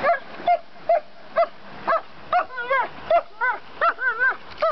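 A dog giving short, high-pitched yips and whines, about two a second, coming faster and wavering up and down in pitch in the second half.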